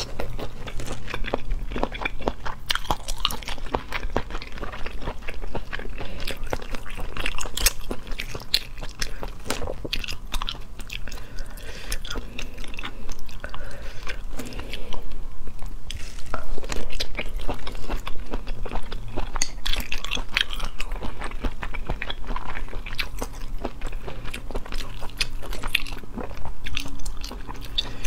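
Close-miked chewing and biting of firm abalone meat, with many short, irregular clicks of the mouth at work.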